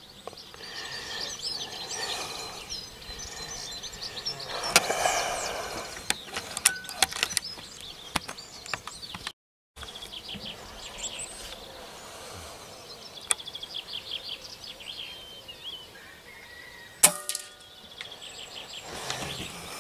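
Small birds singing, with a single air rifle shot near the end: a sharp crack followed by a brief ringing.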